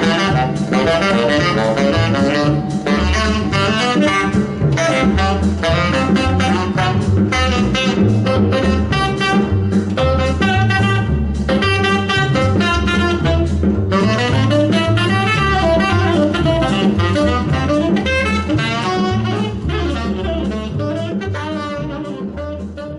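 Jazz with a saxophone lead over double bass and drums, played back through a Technics SU-7700K amplifier and its speakers; the music gradually fades out over the last few seconds.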